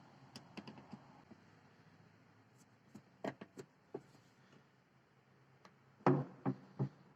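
Scattered light clicks and taps of a Phillips screwdriver working the screws of a car's plastic brake-light fitting, with a louder cluster of knocks near the end.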